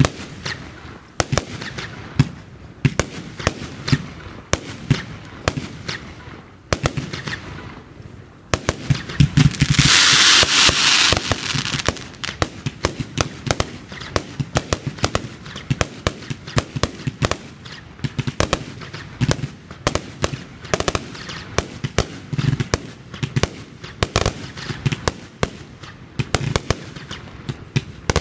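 Fireworks display firing: a rapid, irregular run of launch bangs and bursts throughout, with a loud rushing hiss lasting about two seconds around a third of the way in.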